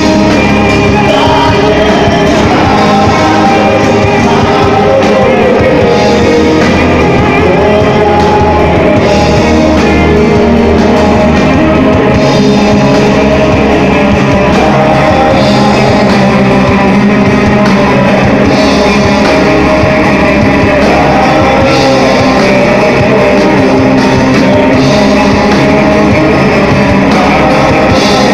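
Live rock band playing loud: electric guitars, bass and drum kit, with a man singing lead into the microphone.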